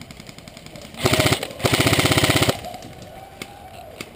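Airsoft gun firing on full auto at close range: two short bursts of rapid, evenly spaced shots, the second a little longer, about a second in.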